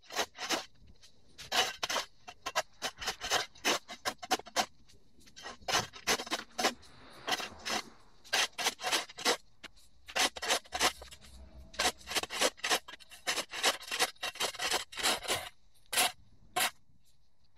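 A shovel scraping and chopping at overgrown turf along the edge of a concrete walkway. It makes dozens of short, irregular scrapes, often several in quick succession, with brief pauses between runs.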